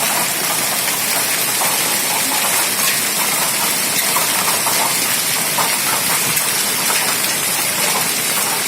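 Heavy storm rain pouring down steadily, a dense, even hiss.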